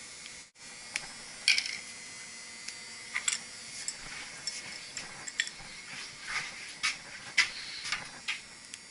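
Metal tools and threaded pipe fittings clinking and scraping as they are handled and tightened: a dozen or so irregular sharp clinks over a steady hiss.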